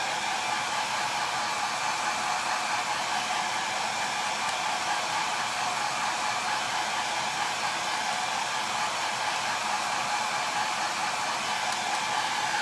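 Handheld hair dryer running steadily, a continuous rush of air with a faint motor whine, drying wet chalk paste on a silkscreen transfer.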